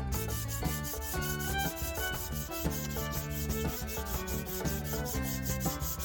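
Rapid, even strokes of a hand scraper shaving the wooden handle of a hammer, several a second, over background music.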